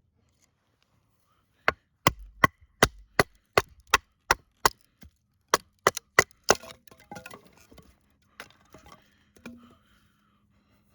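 Large fixed-blade knife (Bark River Tope Recon, 7.5-inch CPM-3V blade) chopping into wood: about a dozen sharp strikes, roughly three a second with a short break in the middle, then lighter knocks and rustling of wood being handled.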